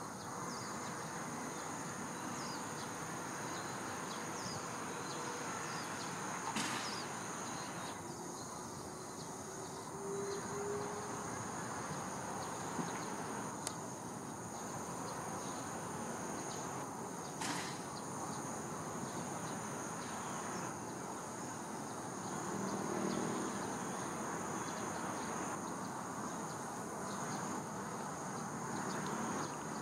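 Insect chorus: steady, high-pitched trilling in two held pitches over a low, even background hiss, with a couple of brief faint clicks.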